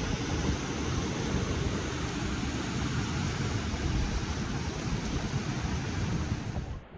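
Steady rushing of water pouring over falls, an even noise that cuts off abruptly near the end.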